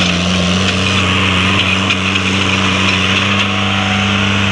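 Small tractor's diesel engine running at a steady speed.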